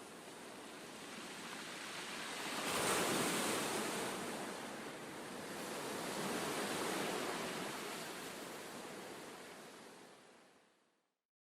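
Ocean waves washing in, swelling twice, then fading out to silence near the end.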